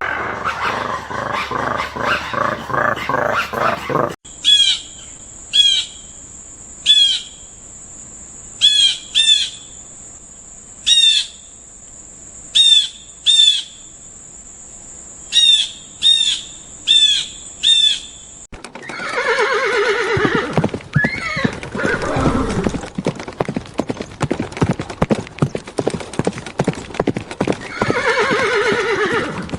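A horse whinnying, with loud neighs falling in pitch through the last ten seconds. Before it come a rhythmic animal call in the first four seconds, then about fourteen short, high chirping calls.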